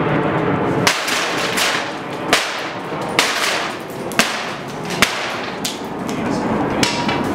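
Pike pole driven up again and again into a plywood ceiling panel, a sharp crack of splintering wood roughly once a second. It is knocking a hole out of the panel in a pike pole ceiling prop.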